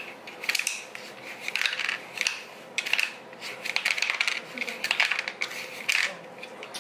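Wooden discs of a tabletop sling puck game clacking against the wooden board and each other. The players fire them back and forth through the centre slot, giving many quick, irregular clicks and knocks.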